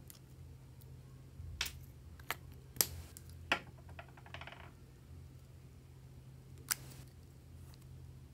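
Handling sounds of a plastic spatula and lipstick tubes against a glass bowl: about five sharp clicks and taps spread over several seconds, with a brief faint scrape in the middle, over a low steady hum.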